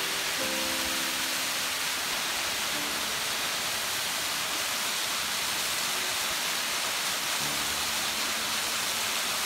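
Small waterfall pouring over a rock ledge and splashing onto the rocks below: a steady rushing hiss.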